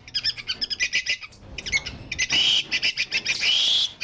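Monkey calling: a rapid run of short, high-pitched chattering calls, with a few longer shrill calls in the second half.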